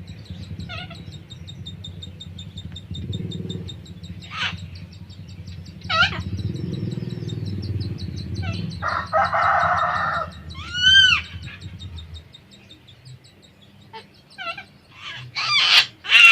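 Bird calls from around a cockatoo nest box: short squawks, a harsh rasping call about nine seconds in, a clear rising-and-falling call about eleven seconds in, and a quick run of calls near the end. These are possibly a cockatoo chick calling from inside the box, though the keeper is not sure. A steady low hum lies under them and stops about twelve seconds in.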